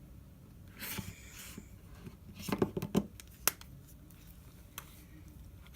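Small handling noises on a workbench: a short scratchy rustle, then a few light clicks and taps and one sharp click, as parts of a phone are handled during reassembly.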